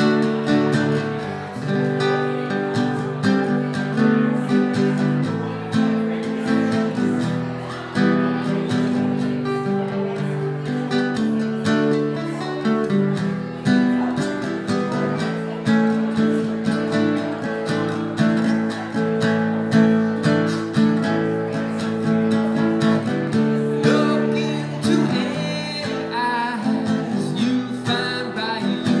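Acoustic guitar strummed steadily in a solo live performance, an instrumental passage with a man's singing voice coming in near the end.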